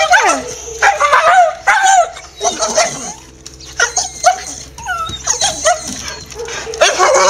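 Staffordshire Bull Terrier barking excitedly, with yips and whining 'talking' calls that slide up and down in pitch, coming one after another every half second to a second with a short lull in the middle.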